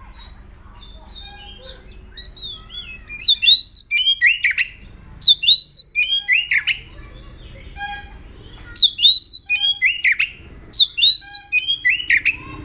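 Oriental magpie-robin in full song: loud, varied whistled phrases of slurred notes, many sweeping down in pitch. The song starts softly about two seconds in, then comes in four rapid bursts with short pauses between them. It is the aggressive song of a bird in breeding condition.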